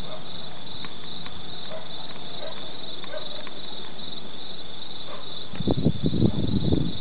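Thunderstorm outdoors: a steady noise with a high, pulsing chirp running through it. About five and a half seconds in, loud, irregular low rumbling starts.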